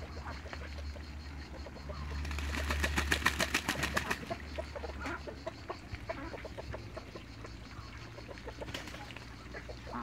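Backyard fowl calling, short clucks and peeps scattered through, with a rapid rattling run of sharp strokes, about ten a second, lasting about two seconds a couple of seconds in, the loudest part. A low steady hum runs underneath.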